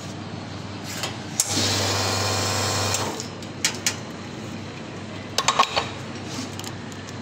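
Espresso machine pump running with water rushing from the group head, a steady hum that starts about a second and a half in and stops after about a second and a half: a group-head flush. A few sharp metal clinks follow as the portafilter is handled at the machine.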